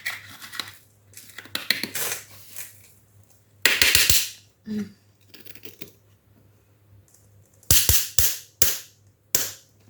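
Ceramic floor tiles being laid with plastic leveling spacers: sharp knocks and clicks as tiles and spacers are set in place. There is one longer scrape-like clatter a little before halfway, then a quick run of four or five knocks near the end.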